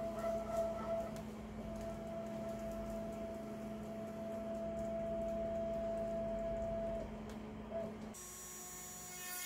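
Axiom Precision CNC router's axis drive motors whining in one steady tone over a low hum as the spindle is jogged down from the handheld pendant. The whine breaks off briefly about a second in and stops at about seven seconds. A little later the hum cuts off suddenly and a quieter sound follows.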